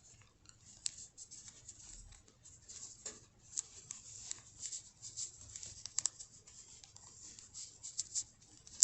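Faint handling noise as a glove is worked by hand and a small hair rubber band is wrapped around its fingertip: scattered light rustles and small scratchy clicks, with a few sharper ticks.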